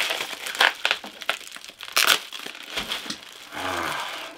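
Packaging crinkling and rustling as a shipped book is unwrapped by hand, with irregular sharp crackles.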